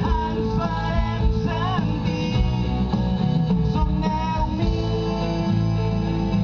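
A song: a man singing with guitar accompaniment.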